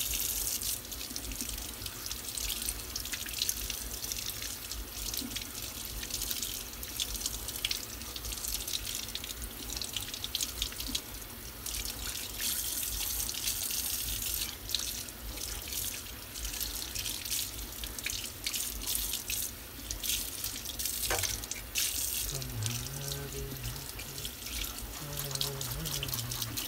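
Kitchen tap running steadily into a sink and splashing over a fish, with quick scraping ticks as a knife is worked over the striped bass's skin to clean it.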